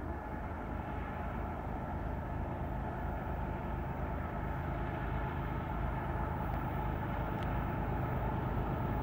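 Diesel locomotive of an approaching freight train: a low engine rumble growing steadily louder.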